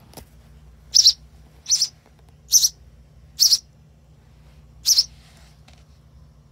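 Baby sparrow giving five short, high-pitched begging chirps, most about a second apart, the last after a longer pause.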